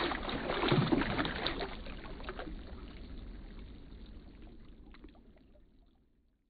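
Splashing and sloshing water as a bass is released by hand beside a kayak, with many small splashes and drips, loudest at first and fading away about five seconds in.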